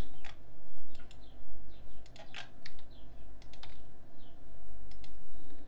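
Scattered clicks of a computer mouse and keyboard: button presses, scroll-wheel turns and a key press, irregularly spaced, over a steady low hum.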